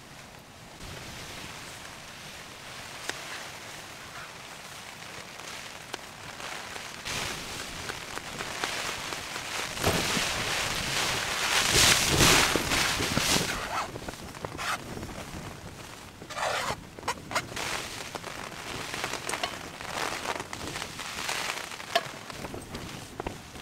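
Knife slicing and chopping garlic cloves on a thin plastic cutting board: scattered clicks and taps, clustering near the end. A rush of hiss swells and fades about halfway through.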